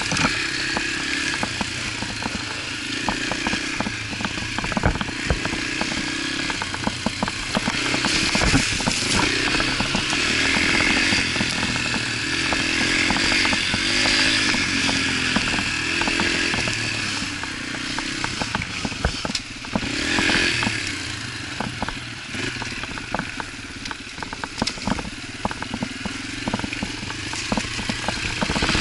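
Yamaha TT-R125 dirt bike's single-cylinder four-stroke engine running under way, revving up and down with the throttle, with frequent clicks and rattles from the bike over rough trail.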